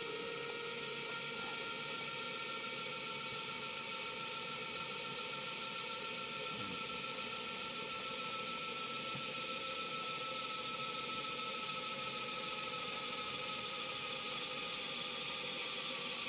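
Vessel 220USB P1 electric screwdriver with a 1/8-inch drill bit running steadily while drilling through a thin metal handy box cover, a continuous motor whine.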